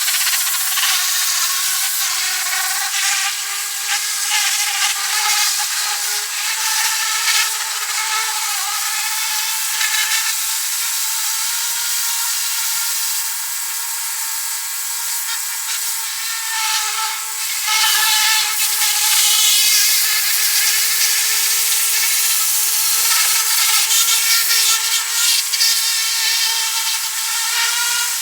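A handheld power tool running continuously, starting abruptly and holding a steady whine with slight dips in pitch as it is loaded.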